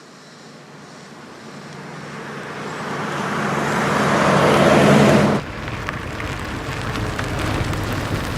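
A car growing steadily louder as it approaches, its engine and road noise cut off abruptly about five seconds in. A steadier, quieter car engine rumble follows, with a few light ticks.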